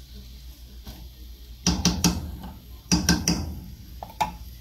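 Wooden spoon knocking against an aluminium cooking pot, two quick sets of about three taps each, then a single knock near the end as the spoon is set into an enamel mug.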